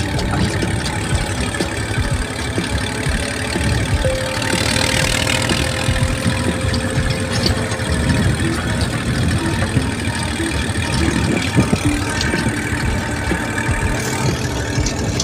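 Massey Ferguson 35 tractor's diesel engine running as it pulls a trolley over a rough dirt track, with many small knocks and rattles.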